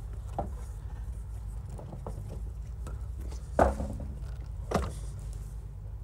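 Three short, sharp knocks, the loudest a little past halfway, over a steady low rumble.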